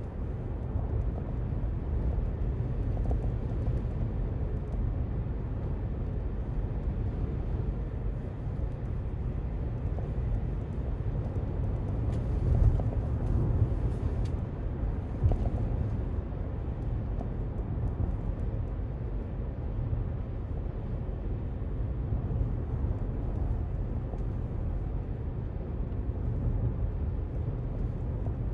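Steady low rumble of road traffic, swelling briefly about twelve seconds in, with a single short knock a few seconds later.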